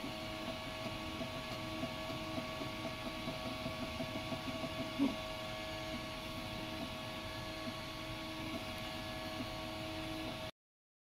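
Ultimaker 3D printer running a print: its stepper motors whine in several steady tones that wobble slightly as the print head moves. There is a brief thump about halfway through, and the sound cuts off suddenly near the end.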